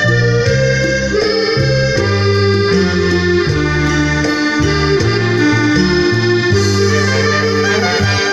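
Instrumental break of a Thai luk thung song: a reedy lead melody in held notes over a bass line and steady ticking percussion, with no singing.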